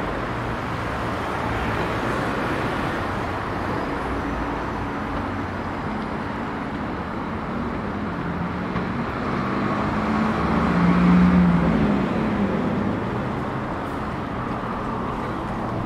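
Road traffic on a wide city street: cars and a bus passing, engines and tyres making a steady noise. About nine seconds in, one vehicle's engine hum swells as it passes close, the loudest part, then fades.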